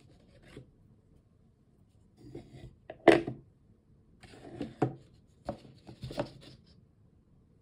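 Kirby candy pumpkin pot being handled: its printed candy cone rubbing and knocking against the small plastic pumpkin base as it is set into it. A series of short scrapes and knocks, the loudest about three seconds in.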